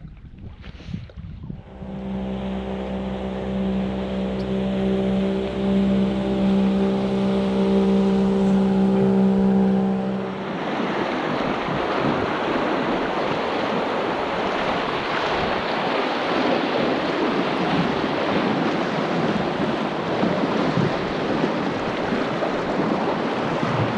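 Small electric boat motor hums at a steady pitch for about nine seconds, then stops. After that, a loud, steady rush of river water carries on.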